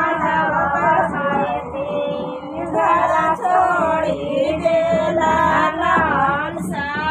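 Singing with music: a song carried by long held vocal notes that glide up and down.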